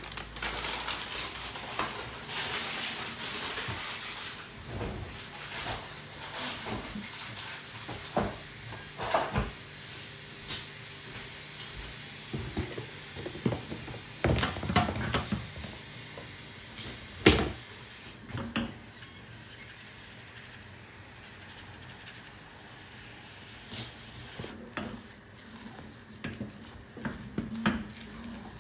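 Wooden spatula working thick fufu dough in an aluminium pot, with scraping and irregular knocks of the spatula against the pot. The loudest knock comes about 17 seconds in.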